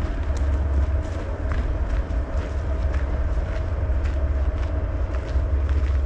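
Steady low rumble of wind buffeting the camera microphone, with light crunching footsteps on a gravel trail.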